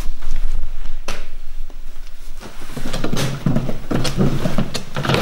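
Handling noise: a paper pedigree sheet rustling as it is set down on a wooden slatted pigeon basket, with scattered knocks over a low rumble.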